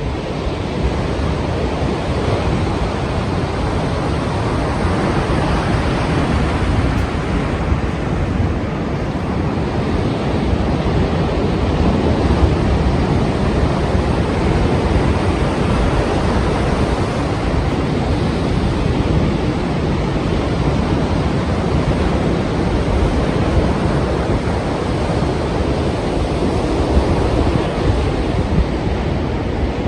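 Strong sea surf: waves breaking in a continuous, steady rush of water.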